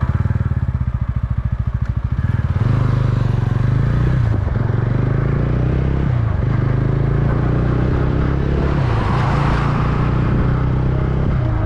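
TVS Ronin's 225 cc single-cylinder engine pulling away and accelerating through the gears, its note rising and then dropping back at each of several upshifts. Wind rushing over the microphone builds as the speed climbs.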